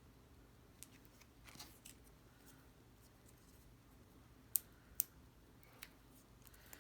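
Faint scattered clicks and light rustling of paper craft pieces being handled, with two sharper clicks about four and a half and five seconds in.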